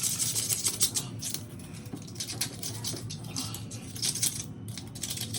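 Floor being scrubbed with quick, scratchy strokes, loudest in the first second and easing off through the middle.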